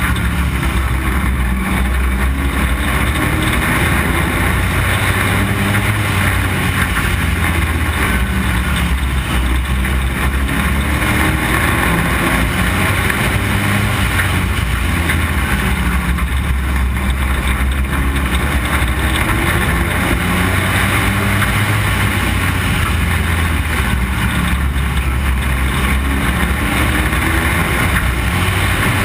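Street stock race car's engine under racing load, heard from on board: loud and continuous, its pitch rising and falling in slow repeated sweeps as the car laps the oval.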